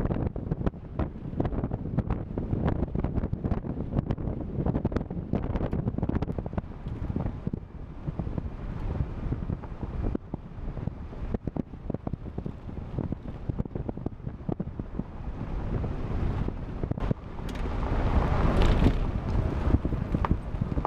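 Wind buffeting the microphone over a vehicle driving off-road, with frequent short knocks and rattles from the rough ground; it swells louder near the end.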